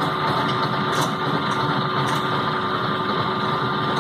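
Epicyclic gear train test rig running steadily, its electric motor driving the sun gear, planet gears and drums at about 630 rpm, a steady machine hum.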